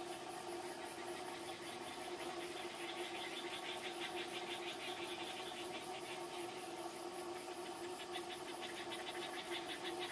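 A steady low mechanical hum, like an idling engine, under a fast pulsing high-pitched trill that grows stronger a few seconds in and again near the end.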